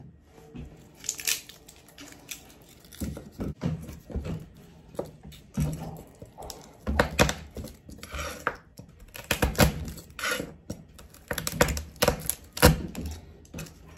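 A knife and garlic cloves knocking and tapping irregularly on a plastic cutting board, with short rustles as the papery skins are peeled off.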